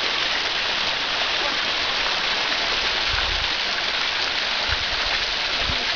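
Small waterfall cascading down a rock face: a steady hiss of falling and splashing water, with a few brief low bumps.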